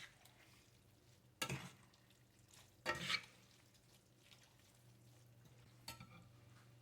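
Pasta being stirred into a cream sauce in a pan: three brief scraping, stirring sounds spaced out over a faint steady hum.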